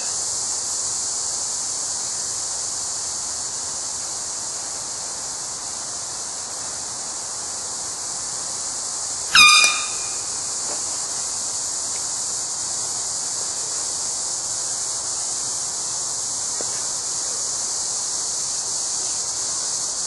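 A hand-held air horn gives one short, loud blast about halfway through, over a steady high-pitched buzz of insects.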